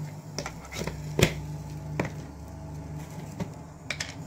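Kitchen utensils and spice containers being handled on a stone counter: about six sharp, scattered clicks and knocks, the loudest a little over a second in.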